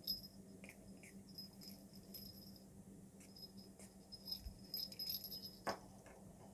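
Small metal jingle bells on keychains tinkling faintly and metal key rings clicking as the pouches are handled, with a light knock near the end as one is set down. A steady low hum runs underneath.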